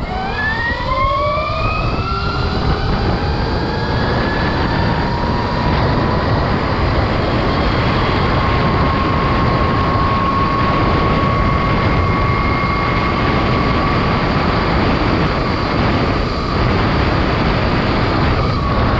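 EM-23 electric dirt bike's motor, run by a FarDriver sine-wave controller, whining under hard acceleration from a crawl to about 48 mph. The whine rises in pitch over the first few seconds, then holds steady. Heavy wind rush on the microphone runs under it.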